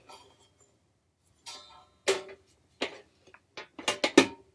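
Hard plastic clacks and knocks from a new Chefman air fryer being handled, with a brief rustle about one and a half seconds in. Single knocks follow at about two seconds and again near three, then several come in quick succession near the end, each with a short hollow ring.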